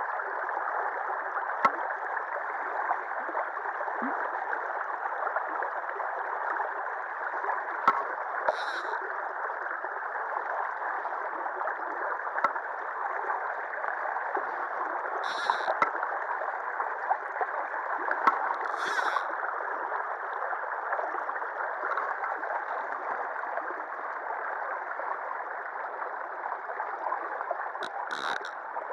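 Steady rush of river water pouring over and around a concrete ledge. Three short high-pitched sounds come through it about a third, half and two-thirds of the way in.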